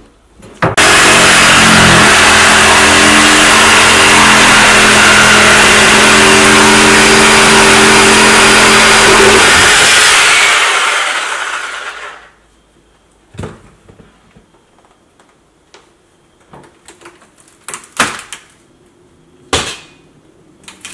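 Electric reciprocating saw running loud and steady as it cuts through the laminate-topped particleboard countertop, then winding down over about two seconds near the middle. A few scattered knocks follow.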